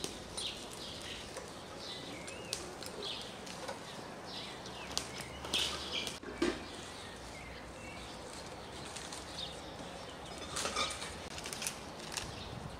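Hand pruning shears snipping rose stems, with the stems and leaves rustling, as sharp scattered clicks that are loudest around the middle and again near the end. Small birds chirp now and then in the background.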